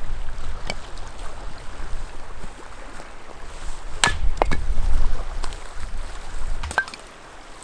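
A few short, sharp wooden knocks and snaps, about four in all, the loudest two close together about four seconds in: sticks and kindling being handled and broken for a campfire.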